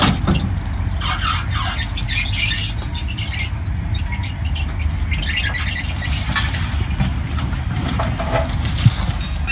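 Vehicle moving with a steady low rumble, under irregular high squealing and scraping that comes and goes.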